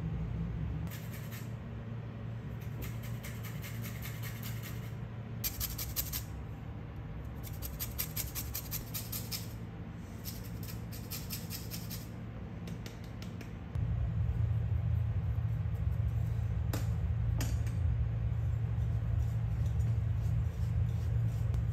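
Citrus zest being grated on a metal hand grater over a glass bowl: runs of quick, fine rasping strokes for most of the first half. After that a steady low hum grows louder, with two sharp clicks.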